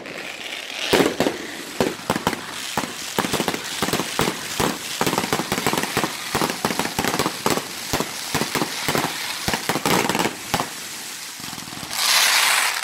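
Fireworks display: a rapid, irregular barrage of bangs and crackling pops from bursting aerial shells and crackle stars, with a louder, sustained crackling hiss near the end.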